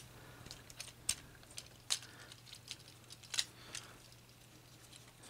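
Sparse, faint clicks of hard plastic parts on a Transformers action figure being handled and moved, as the hands are flipped out and the arms swung, with a faint steady low hum behind them.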